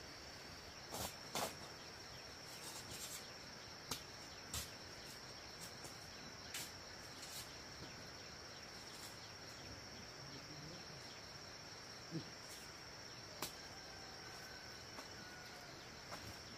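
Insects trilling in a steady, high-pitched chorus, with a few short, sharp knocks and taps scattered through it. The loudest knocks fall about a second in.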